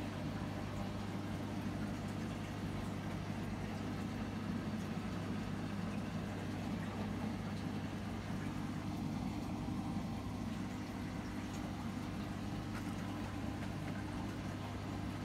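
Aquarium pump running with a steady low hum.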